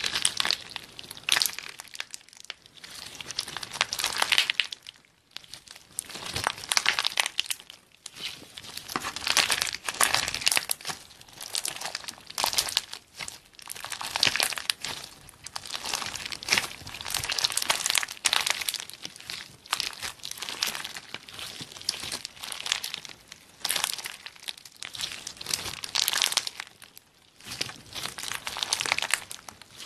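Clear slime packed with small red and green apple-shaped plastic beads being squeezed and stretched by hand, crackling and crinkling in repeated bursts a second or two apart.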